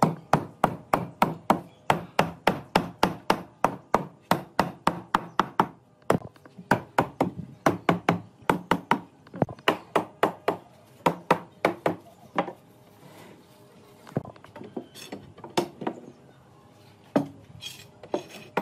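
Mallet striking wooden rails to drive the joints home into the posts of a pine table frame: rapid even knocks about three or four a second, with a short break about six seconds in. After about twelve seconds the knocks stop, and only a few scattered knocks follow.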